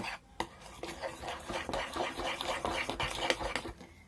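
Slime mixture of glue, shaving foam and glitter being stirred in a container with a utensil: a quick, continuous run of wet scraping and tapping strokes that stops near the end.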